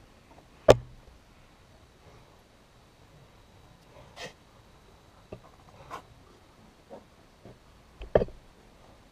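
Piglets nosing at a camera on the ground: a scattering of short, sharp snorts and bumps, the loudest about a second in and another near the end.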